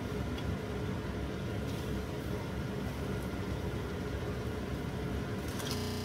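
Dough rounds frying in a pan of hot oil, under a steady low hum and rumble; a few short clicks near the end.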